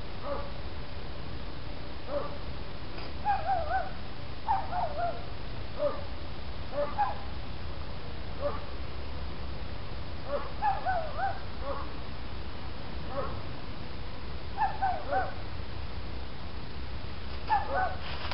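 An animal's short, high calls whose pitch bends, coming singly or in quick runs of two to four every second or two, over a steady low rumble.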